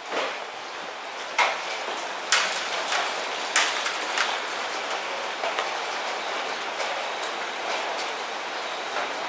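JR 311-series electric train standing at the platform with its pantograph just raised and its equipment powered up: a steady hiss with irregular sharp clicks and clacks, the loudest about a second and a half and two and a half seconds in.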